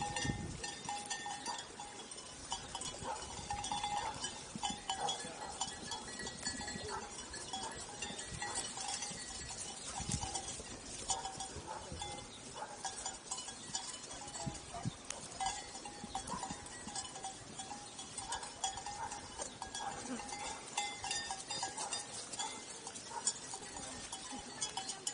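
Sheep grazing close by: a steady run of small crisp clicks of grass being torn and chewed, over the ongoing clinking of sheep bells.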